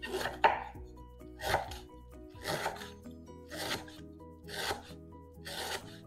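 Chef's knife slicing through fresh lemongrass stalks on a bamboo cutting board: six crunchy cuts, about one a second, over background music.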